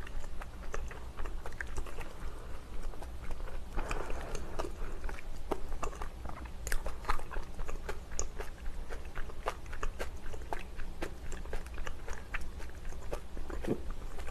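Close-miked chewing of a large, thin-skinned spicy Korean dumpling (mandu), heard as many small mouth clicks and smacks throughout, with a denser stretch of chewing about four seconds in.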